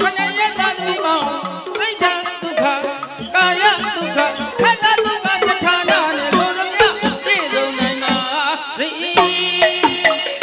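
Burmese hsaing waing orchestra playing a fast passage: many struck, tuned percussion notes with melodic lines that bend and waver in pitch.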